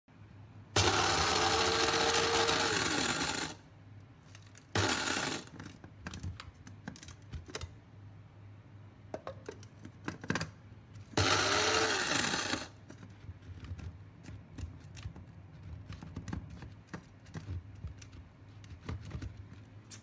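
De'Longhi KG49 blade coffee grinder running in three pulses: a long one of about three seconds, a short one, then one of about a second and a half, the motor's pitch falling as it spins down after the first and last. Light clicks and rattles between the pulses.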